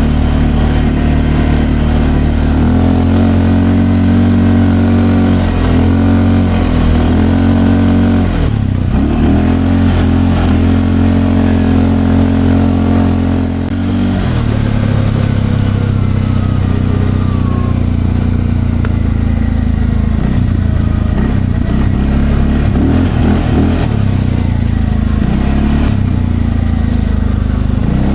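Linhai Landforce 550L ATV's single-cylinder four-stroke engine running under load while riding, its pitch rising and falling with the throttle. It eases off about halfway through, then runs on more unevenly.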